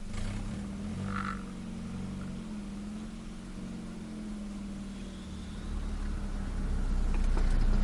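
Turbocharged Nissan Micra engine heard from inside the cabin, running at low revs with a rough, raspy pulsing, the sound of an exhaust leak from the turbo having come loose from the manifold. It gets louder over the last couple of seconds as the throttle is opened.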